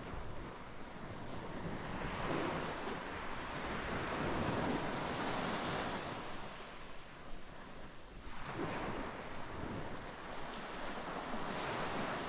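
Sea waves breaking and washing up the shore, the noise swelling and ebbing in several surges, with wind rumbling on the microphone.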